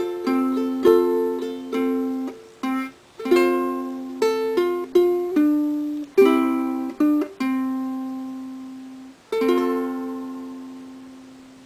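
Ukulele strummed solo, an instrumental ending to a song: a run of chord strums with a couple of short breaks, then a last chord struck about nine seconds in and left to ring out and fade.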